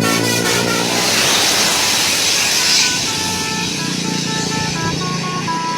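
Tour bus 'telolet basuri' musical air horn: a chord of horn tones dies away in the first half second, then comes a loud burst of rushing noise. From about three seconds in the horn plays a tune of short single notes, stepping from pitch to pitch every few tenths of a second, over a steady low engine hum.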